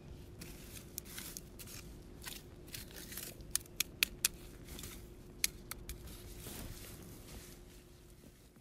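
Metal shovel digging and scraping through field soil, a gritty crunching with several sharp clicks in the middle, fading out near the end.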